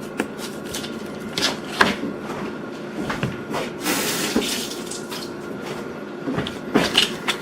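Kitchen prep on a cutting board: a knife and hands working sweet peppers, pulling out the seeds, with scattered taps and knocks and a brief rustle about four seconds in.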